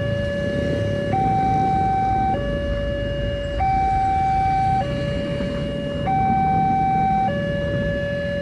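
Railway level crossing warning siren sounding its two-tone alarm: a lower and a higher tone alternating evenly, each held a little over a second. This is the crossing's warning that a train is approaching.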